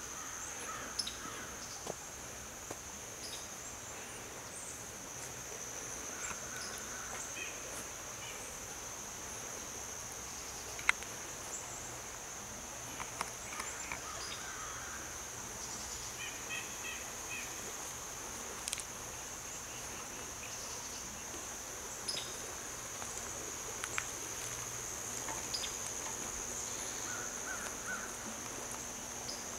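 A steady, high-pitched insect chorus of crickets or katydids, with occasional bird chirps and a few sharp clicks, the loudest about eleven seconds in.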